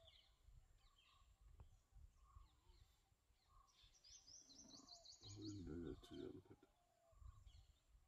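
Faint wild birdsong: a quick run of high chirping notes about four seconds in, over soft repeated lower calls. A low background rumble runs beneath, with a brief low pitched sound near the middle.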